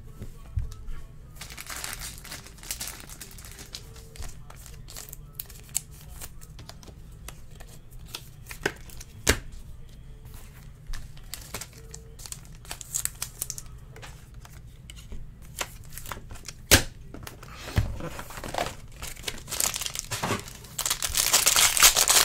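Trading cards and plastic card holders being handled on a table, with scattered small clicks and taps. Near the end, a foil card-pack wrapper is crinkled and torn open.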